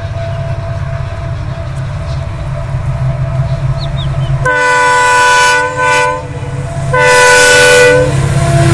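Diesel locomotive air horn sounding two blasts over a steady low rumble. The first blast is about one and a half seconds long and the second about a second.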